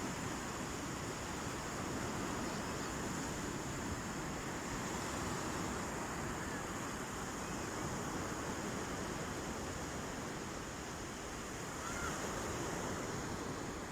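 Sea waves washing steadily onto a beach, a continuous surf noise that swells and eases gently.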